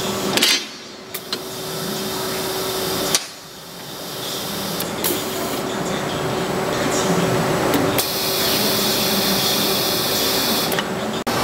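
Centerless grinder and its automatic loading and unloading gear running: a steady machine hum with a held tone, broken by a few sharp metallic knocks, the loudest about three seconds in. A brighter hiss comes in at about eight seconds.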